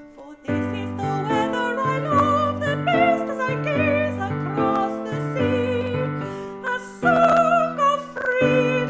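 Song music: piano accompaniment with a bass line moving on a steady beat under a wavering, vibrato melody line, after a brief pause right at the start.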